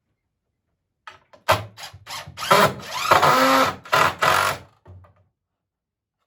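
Power drill driving a screw into a wooden swing slat. It comes in several short trigger bursts, then one longer run of about a second, then two more short bursts, stopping about five seconds in.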